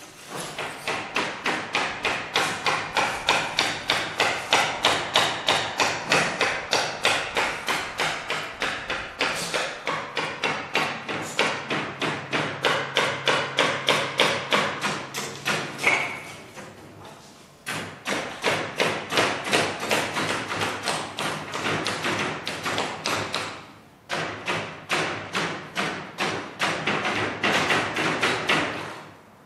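Hammer blows in a workshop, struck rapidly and evenly at about four a second, in three long runs with two brief pauses.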